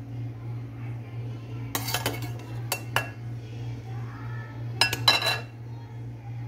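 Dishware and utensils clinking as a salad dish is handled: a few sharp taps about two seconds in and near three seconds, and a cluster of clinks around five seconds. A steady low hum runs underneath.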